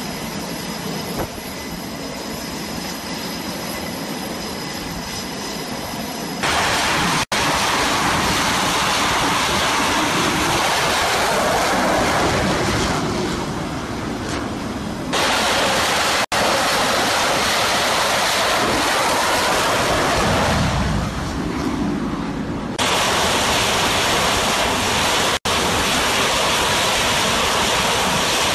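Jet aircraft engines running on an aircraft carrier's flight deck: a steady high whine at first, then from about six seconds in a much louder rushing noise with a deeper rumble for a moment later on, broken by three brief dropouts.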